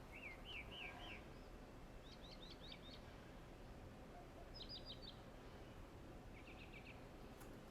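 Faint birds chirping: short quick runs of high chirps repeat every second or two over a low background hiss.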